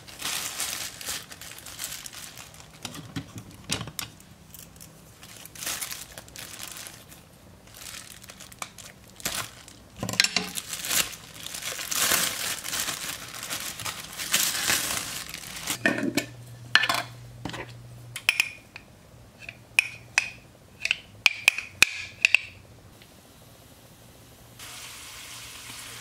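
A clear plastic bag crinkling and rustling as it is handled and opened, in irregular bursts. Later comes a string of short, high electronic beeps.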